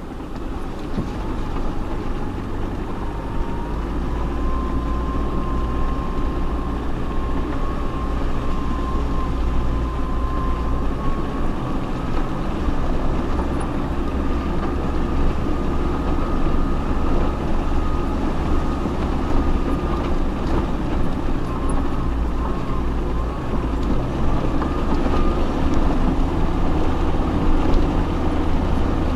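Off-road 4x4 driving slowly over a rough mountain track, its engine and drivetrain running steadily. A thin whine rises about three seconds in and lasts several seconds.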